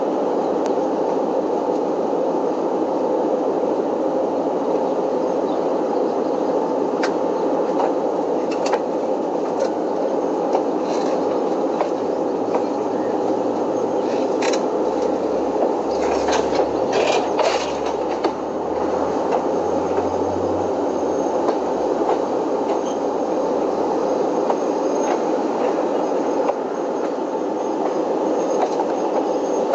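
Train running on the rails: a steady rumble with scattered sharp clicks and knocks, most of them bunched together about halfway through, and a deeper low rumble that swells in the middle.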